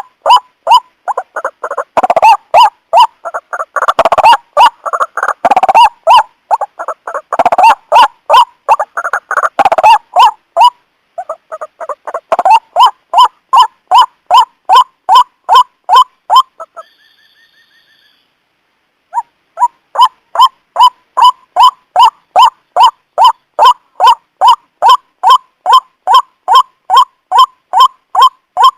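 White-breasted waterhen calling its repeated harsh 'ruak-ruak' croaks, about two a second. For the first ten seconds several calls overlap in a busier chorus; after a short pause near the middle a single steady series resumes.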